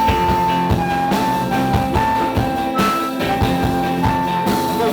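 Rock band playing live in a passage without vocals: a steady drum beat under a melody of long held notes that step down and back up.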